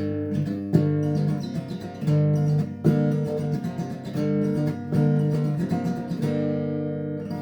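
Acoustic guitar strumming the closing chords of the song's riff, then a final chord left ringing and fading from about six seconds in.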